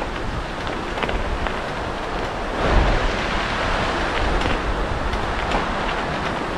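Steady rushing and splashing of a mountain stream. A gust of wind buffets the microphone about three seconds in.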